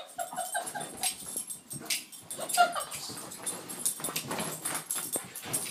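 Doberman whimpering with excitement in a few short, high whines, amid quick thumps and scuffs as she runs about.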